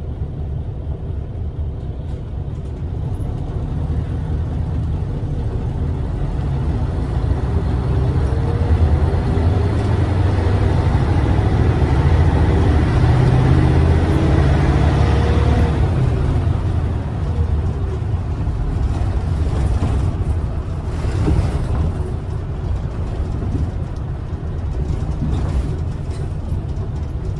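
Isuzu Erga city bus's V8 diesel engine heard from inside the cabin, pulling under load as the bus accelerates. The engine note climbs and grows louder to a peak about halfway through, then eases off and runs steadier, with a few light rattles of the bus body.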